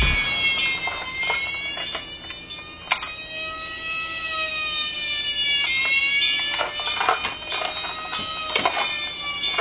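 A toy vehicle's electronic siren wailing, its pitch slowly falling and then rising again, with scattered sharp clicks from the plastic toy being handled.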